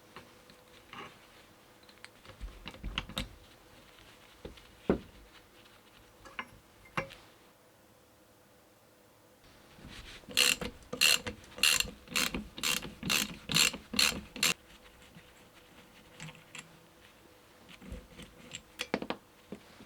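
A hand ratchet wrench clicking on the parts of an old VW Golf Mk1 steering rack during disassembly, among scattered knocks of metal tools and parts. Midway comes a run of about ten quick, even strokes over some four seconds.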